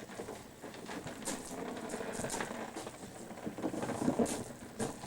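Large cardboard refrigerator box rustling and scraping as it is handled, with irregular taps and knocks.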